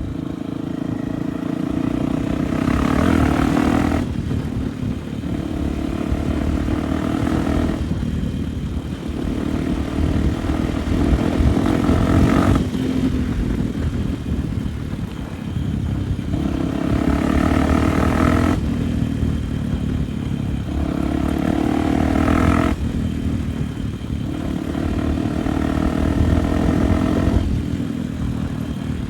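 Honda Tornado enduro motorcycle's single-cylinder four-stroke engine under way, the throttle opened and eased off again and again, so the engine note rises and drops in surges every four or five seconds.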